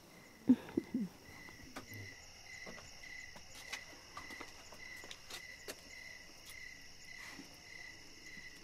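Crickets chirping at night: a regular chirp about three times a second over a steady high insect buzz. Two short, louder sounds come in the first second.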